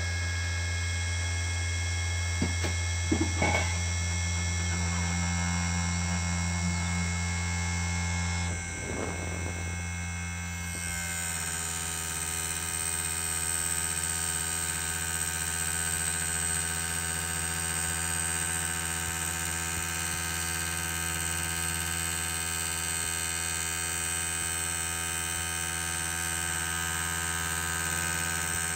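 Small hobby CNC lathe, a converted CNC1610, running: a steady electrical hum and whine from its stepper motors and spindle motor, with a few light clicks about three seconds in. About nine to eleven seconds in the tones shift and a higher whine comes in, then runs steady.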